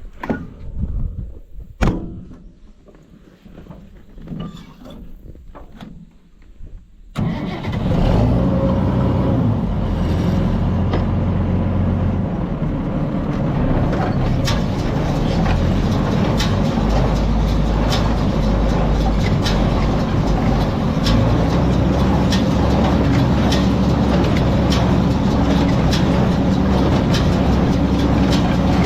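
A tractor and small square baler come on suddenly about seven seconds in and run steadily under power, a low engine drone. From about halfway through, the baler's strokes add a regular clacking rhythm.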